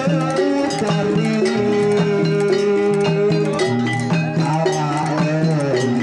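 Live traditional Indonesian ensemble music amplified through a PA: a long, wavering sustained melody over steady pitched percussion tones and light drum strokes.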